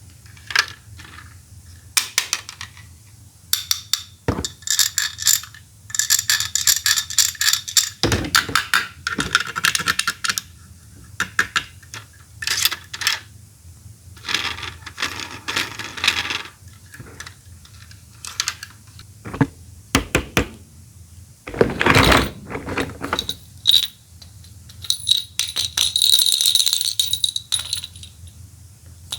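Plastic toy Poké Balls handled close to the microphone: a busy string of clicks, snaps and rattles as they are popped open and clicked shut. Near the end a high ringing tone sounds for a few seconds.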